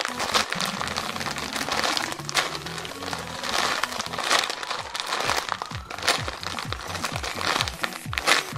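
Foam jumbo squishy being squeezed and handled close to the microphone, giving a run of crinkling and rustling sounds, over background music with a steady beat.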